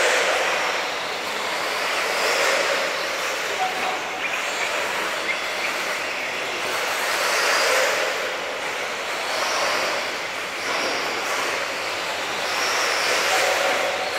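Tekno EB48 1/8-scale electric RC buggies running laps on a dirt track: a continuous rush of motor and tyre noise that swells and fades every two to three seconds as the cars come near and go away.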